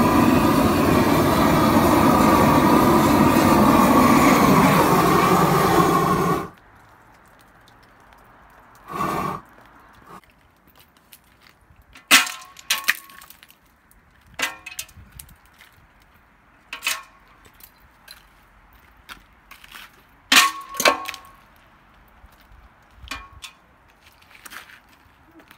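A blower running steadily, its nozzle driving slush and meltwater across wet pavers; it cuts off about six seconds in. After that come short, sharp knocks and clinks at irregular intervals of one to three seconds, as a long pole strikes icicles hanging from a house gutter.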